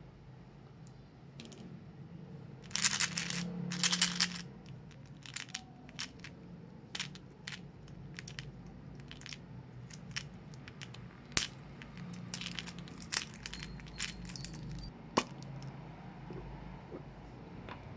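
Small candies rattling inside a plastic candy tube as it is handled, loudest in two short bursts about three and four seconds in, followed by scattered plastic clicks as the tube's snap cap is worked off.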